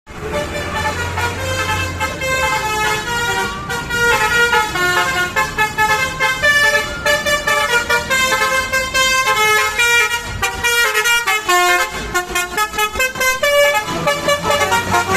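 Multi-tone 'telolet' musical bus horn playing a fast melody, several notes sounding together and changing several times a second. A bus engine runs underneath.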